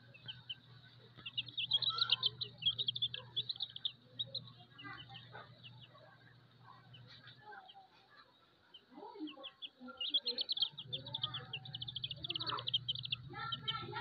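Chicks sheltering under a brooding hen give rapid, high, trilling peeps in two bursts, a second or so in and again about ten seconds in, with softer scattered calls in between over a low steady hum.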